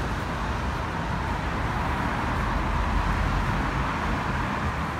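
Steady road-traffic noise: a continuous rumble and hiss of passing vehicles with no distinct events standing out.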